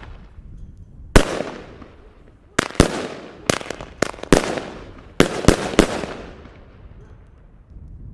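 Argento Thunderbolts F2 single-shot fireworks with 4.5 g charges going off in a quick, irregular run of about nine sharp bangs, each followed by an echo. The run falls between about one and six seconds in.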